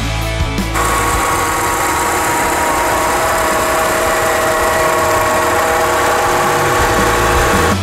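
Chevrolet Tornado pickup's four-cylinder gasoline engine idling steadily, with a constant whine over the running sound. It takes over from rock music about a second in.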